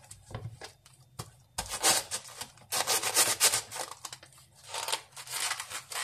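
Raw artichoke leaves being pulled off and the heads prised open by hand, a crisp crackling and snapping that comes in three short spells.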